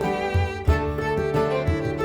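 Instrumental background music led by a fiddle melody, with a low beat underneath.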